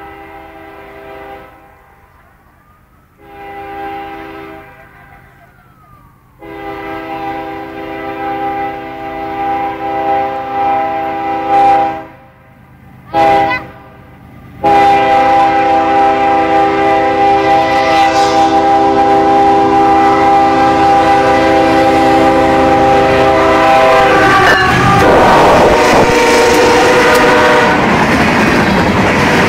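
Freight locomotive's multi-tone air horn sounding the grade-crossing signal as the train approaches: long blasts, a short one, then a final long blast, each louder than the last. About 24 seconds in, the horn gives way to the train passing less than a metre away, a loud steady rush of wheels on rail as the freight cars go by at about 60 km/h.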